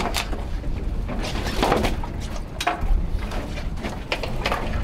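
Scattered knocks and thumps of a large halibut being set down and handled on a metal boat deck, over a steady low rumble.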